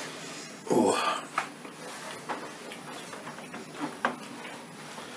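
Quiet eating at a table: a short muffled voice sound about a second in, then a few faint clicks and taps of plates and hands over low room noise.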